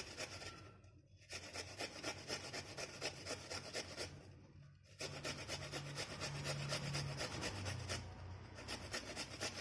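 Fresh ginger root being grated on a small hand grater: quick, repeated rasping strokes, with short pauses about a second in and again around four seconds.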